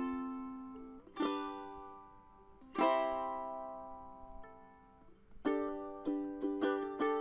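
Music: a strummed string instrument. Single chords are left to ring out and fade, then a quicker strumming rhythm starts about five and a half seconds in.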